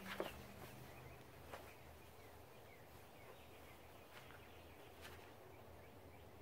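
Near silence outdoors: faint bird chirps over a low steady hum. A brief rustle just after the start comes from a shirt being pulled down.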